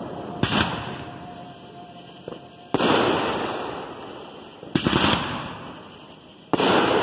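Consumer fireworks cake firing aerial shots one after another: four sharp bangs about two seconds apart, each trailing off over a second or two.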